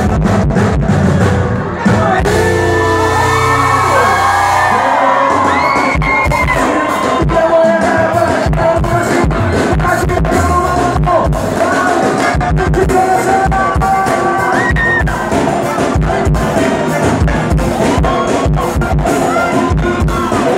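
Loud live sertanejo band music: a man singing into a microphone over accordion, keyboard, guitar and drums with a steady beat. A held low bass note stops about five seconds in.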